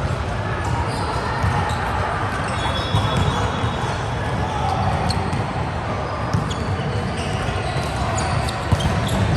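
Volleyball being played in an echoing sports hall: a handful of sharp ball hits and bounces, the loudest near the end, over a steady background of voices and hall noise.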